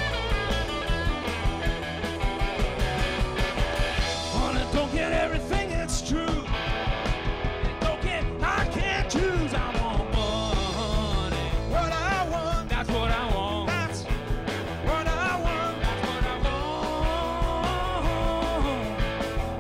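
Live rock band playing an instrumental stretch on electric guitars, bass guitar and drum kit, with a steady driving beat. A lead line wavers and bends in pitch through the middle.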